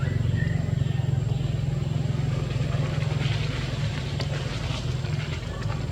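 A motor running steadily with a low hum, with scattered faint clicks and short high chirps over it.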